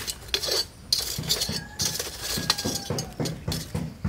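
Kitchen utensils clinking and knocking, with a run of quick knocks at about four a second from about a second in.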